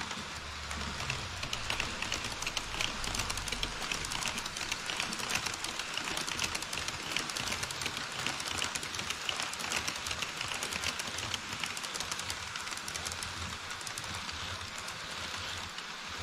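HO scale model trains rolling across a truss bridge on KATO Unitrack: a fast, dense clatter of small wheels over the rail joints, with a hiss of running gear. The clatter is loudest through the middle, while a model E5 Shinkansen passes alongside a freight train, and eases near the end.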